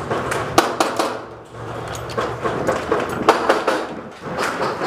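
Airsoft guns firing single shots at an irregular pace, sharp cracks a fraction of a second to about a second apart, laying down cover fire.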